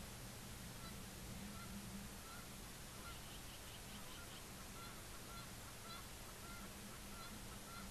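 Faint honking of distant geese: a string of short calls, about two a second, over a steady low hum and hiss.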